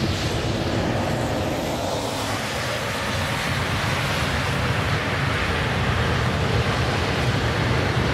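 Double-stack intermodal freight train rolling past at speed: a steady rumble of well cars' steel wheels on the rail.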